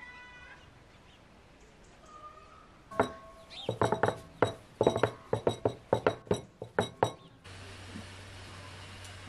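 A quick, uneven run of about fifteen sharp clinks, each with a short ringing tone, over some four seconds. Near the end a steady hiss with a low hum begins.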